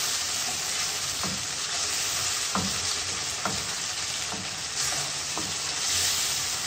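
Chicken pieces frying and sizzling in a non-stick wok while a wooden spatula stirs and scrapes, with a few light knocks of the spatula against the pan. About five seconds in a cornflour-and-water slurry is poured into the hot pan and the sizzle gets louder.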